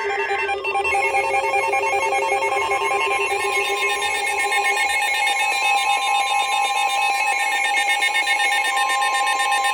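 A burst of EAS digital header data screeches briefly and ends about half a second in. It is followed by a steady, harsh electronic alert tone made of several held pitches: the Emergency Alert System attention signal that comes before a spoken warning.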